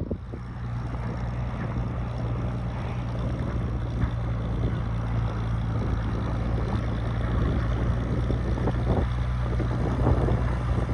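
Old tractor engine running steadily at a constant speed, a low even hum with noise over it.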